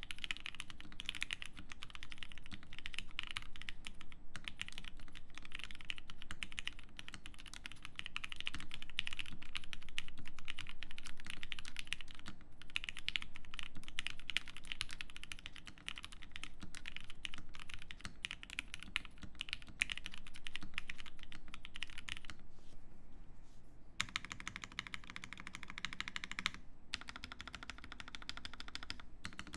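Fast, continuous typing on a TGR Police mechanical keyboard with lubed Gateron Yellow linear switches, a polycarbonate plate and GMK keycaps: a steady rapid stream of keystroke clacks.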